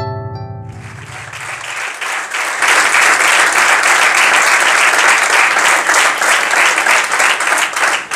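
The last plucked notes of a piece of music fade out in the first second. An audience then starts applauding, builds to full, steady clapping and keeps it up, and the applause falls away at the very end.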